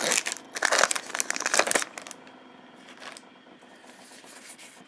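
Foil booster pack wrapper crinkling in the hands for about the first two seconds, then faint rustling as the cards are handled.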